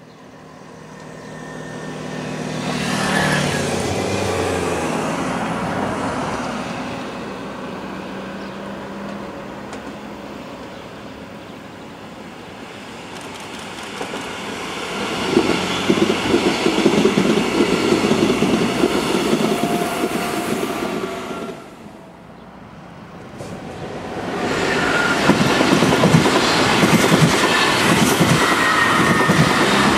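Regional passenger train passing close by, its wheels rumbling and clattering over the rails. The sound builds, eases, then swells again. It drops suddenly about 22 seconds in, then comes back louder with dense clatter.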